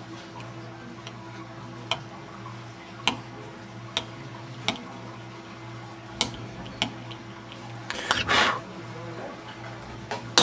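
Steel Hollenback hand instrument scraping and picking at a dental stone model, breaking through the stone that joins the prepared premolar to the next tooth: short sharp scrapes and clicks about once a second, a longer scrape about eight seconds in, and a louder one at the very end.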